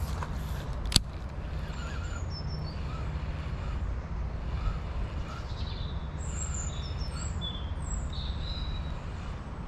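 Small songbirds chirping and calling in short high notes, over a steady low outdoor rumble. A single sharp click sounds about a second in.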